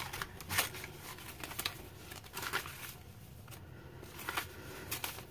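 Soft paper rustling as the pages of a handmade paper journal are turned and its tags handled, with a few short, faint brushes and crinkles scattered through.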